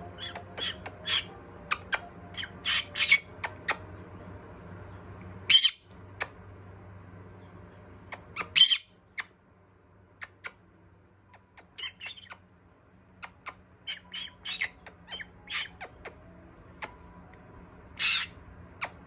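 Pet parrot making many short, sharp squawks and chirps, with three longer, louder squawks scattered through.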